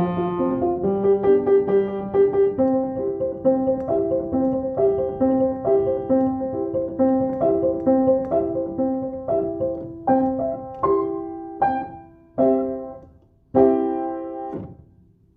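Piano music: a repeating broken-chord figure that slows down and ends in a few separate chords, the last one dying away near the end.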